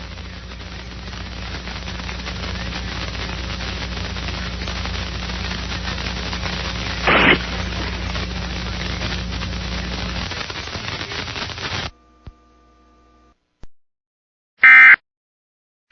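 Steady hiss of broadcast static with a faint hum and one brief louder crackle about halfway through, cutting off suddenly about three-quarters of the way in. Near the end comes a short, loud, screeching burst of Emergency Alert System data tones, the end-of-message code, and a second burst begins just as the clip ends.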